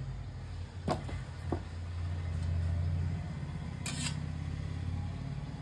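Steel idli-stand plate clinking against a stainless steel serving plate as it is turned over onto it and lifted off: light clicks about a second in and a brighter metal clink about four seconds in. A steady low hum runs underneath.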